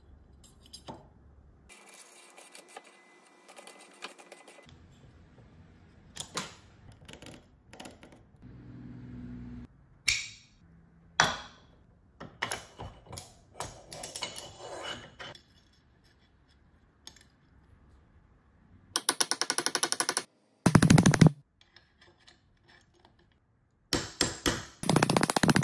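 Hand assembly of an AR-pattern rifle lower receiver: small metal parts clicking and scraping as a detent spring, detent and buffer tube are fitted, then loud fast runs of metallic clicks about nineteen seconds in and again near the end.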